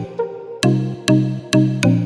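Background music: short chords struck in a quick, uneven rhythm, each starting sharply with a click, after a brief lull near the start.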